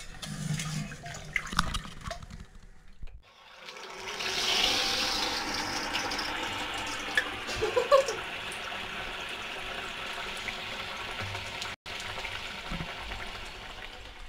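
Dough for kombdi vade deep-frying in hot oil in a kadhai, a steady sizzle that starts about four seconds in.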